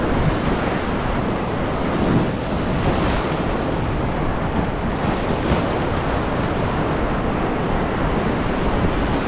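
Sea surf breaking over and washing through a rocky shoreline: a steady, loud rush of water.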